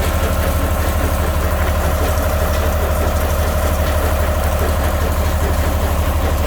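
Heavy machinery running steadily with a low hum and a rapid, even pulse.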